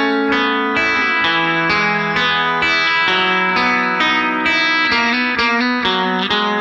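Background music led by plucked guitar, a quick run of notes.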